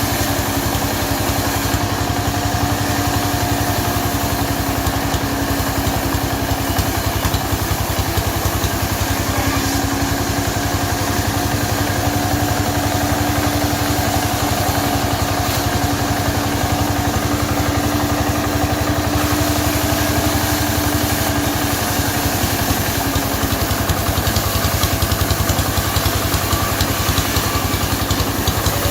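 Chainsaw engine running steadily at a constant speed, with no revving.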